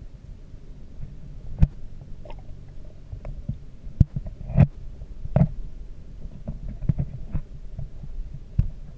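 Muffled underwater sound of an aquarium tank as picked up by a submerged camera: a steady low hum with irregular sharp clicks and knocks, the loudest about four and a half seconds in.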